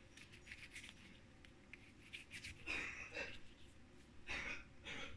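Homemade slime of shaving foam and modelling dough squished and pulled between bare hands: faint sticky crackling, loudest in a few short spells from a little past halfway.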